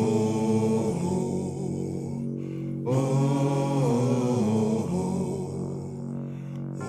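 Song intro: slow music of sustained, layered chant-like tones over a low drone. It moves in phrases of a second or two, with a short break about two and a half seconds in.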